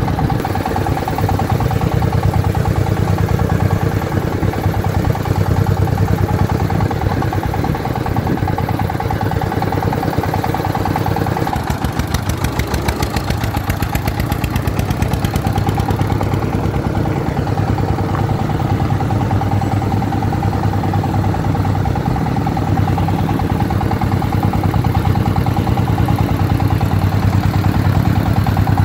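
Single-cylinder diesel engine of a công nông farm truck loaded with crushed stone, chugging steadily with a fast, even beat as it drives slowly. It eases off a little for a few seconds midway.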